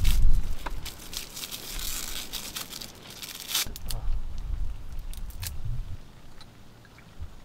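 Crinkling and tearing of plastic wrapping handled up close, with dense crackles for the first three and a half seconds and only scattered ones after. Low rumbles on the microphone come at the start and again about four seconds in.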